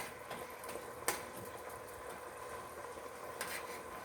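Shrimp sizzling and bubbling in melted butter sauce in a frying pan, a steady soft crackle, with one sharp click about a second in.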